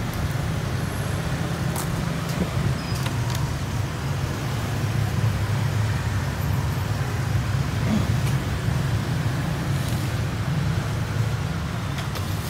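Steady rumble of road traffic, with a few faint clicks and knocks now and then.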